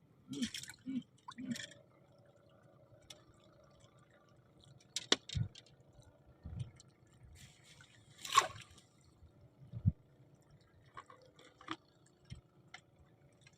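Faint, scattered water sounds: drips and small splashes, with a few sharp clicks and soft knocks.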